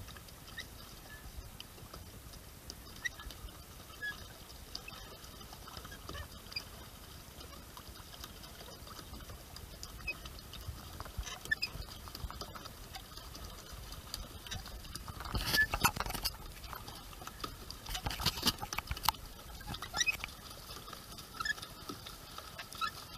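Small water patter and lapping against a boat's hull, with scattered light ticks and drips, and two louder bursts of splashing noise about two-thirds of the way through.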